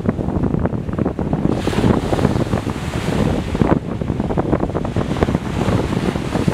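Wind buffeting the microphone in a low, fluttering rumble over the hiss of small waves breaking on a sandy beach, with the surf surging up about two seconds in.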